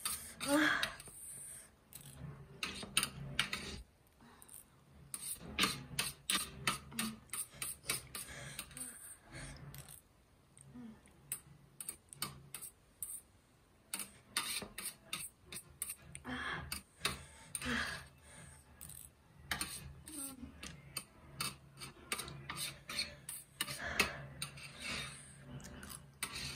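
Close-miked eating sounds: chewing and mouth noises of someone eating spicy cheesy Maggi noodles, with irregular clicks and scrapes of metal chopsticks against a steel tray.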